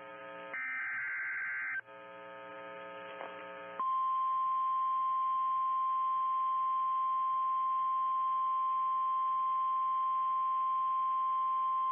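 NOAA Weather Radio alert: the last warbling burst of the digital SAME header, over a buzzing radio hum. About four seconds in, the steady single-pitch 1050 Hz warning alarm tone starts and holds, signalling that a warning message follows.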